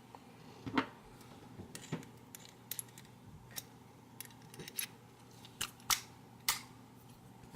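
Irregular small metallic clicks and taps, about a dozen sharp ones, as the ACE A527 padlock's core and parts are worked loose from the lock body by hand.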